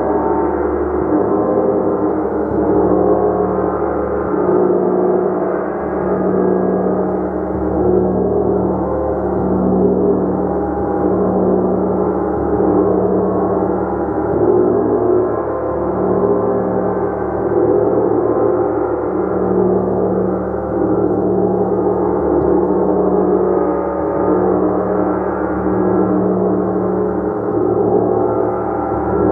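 A gong played continuously: a dense, sustained shimmer of many overlapping tones, with a low hum that swells and fades every second or two as it is kept stroked.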